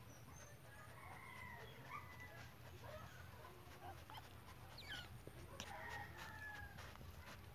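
Near silence with a few faint, short animal calls in the background, once or twice about a second in and again near six seconds.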